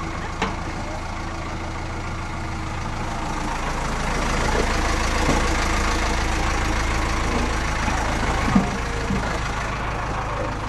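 JCB backhoe loader's diesel engine idling steadily, growing somewhat louder a few seconds in, with a single sharp knock near the end.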